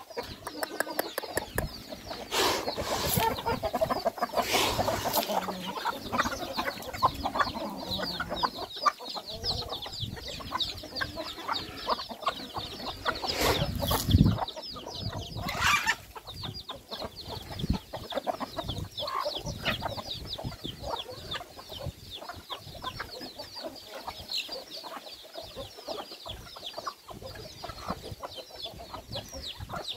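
A flock of farmyard chickens clucking, with dense high chirping throughout. There are a few short noisy bursts, the loudest about 14 seconds in.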